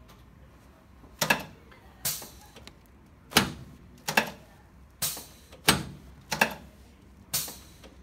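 Chiropractic adjustment of the upper back on an adjusting table: a series of about eight sharp knocks, roughly one a second, as quick hand thrusts are delivered down the spine.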